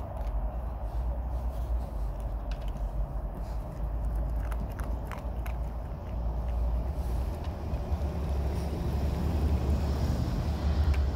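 Low, uneven rumbling noise on the microphone, with a few faint clicks a few seconds in.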